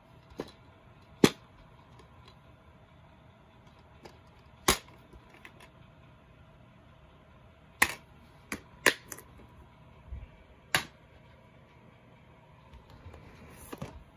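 Plastic DVD cases being handled, with one snapped open and shut: a series of sharp clicks and clacks, about eight in all, the loudest a little over a second in and a quick cluster around the middle.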